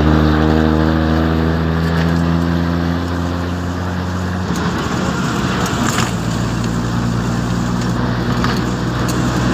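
Engine of a moving road vehicle running steadily under a haze of road and wind noise. Its note changes about four and a half seconds in.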